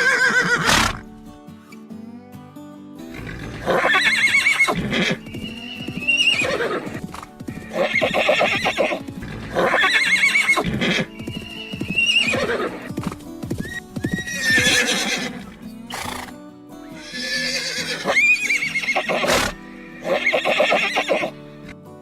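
A horse neighing over and over, about nine whinnies roughly two seconds apart, each a shaky call that rises and then falls away.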